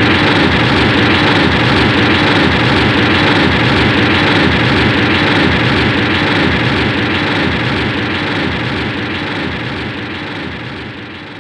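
Heisei Godzilla beam-weapon sound effect, atomic-breath style: a loud, steady rushing blast that holds for about ten seconds, then fades away over the last couple of seconds.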